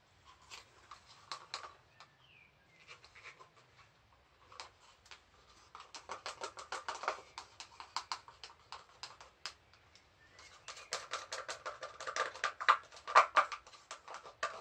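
Quick irregular clicking and crackling from pink nitrile-gloved hands working in wet fluid acrylic paint on a canvas. It goes quiet for a couple of seconds after the start, then comes back busier and louder in the second half.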